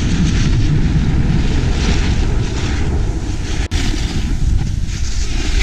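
Wind buffeting a moving action-camera microphone in a loud, steady rumble, with swells of hiss as snowboard edges scrape across packed, groomed snow during turns. The sound drops out for an instant about two-thirds of the way in.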